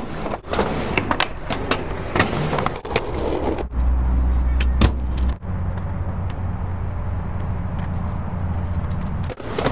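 Skateboard wheels rolling, with repeated sharp clacks and knocks of the board on the ramp and pavement during the first few seconds. A deep rumble follows, with two more knocks, and then settles into a steady low rumble until near the end.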